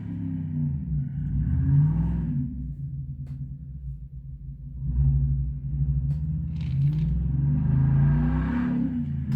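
Car engine revving up and down several times, its pitch rising and falling.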